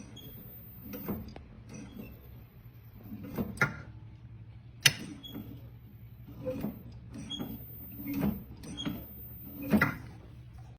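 Irregular knocks and clicks of objects being handled, the sharpest about five seconds in, over a steady low hum.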